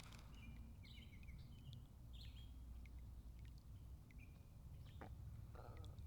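Faint bird chirps, a quick cluster of short high calls in the first couple of seconds and a few more near the end, over a quiet low hum.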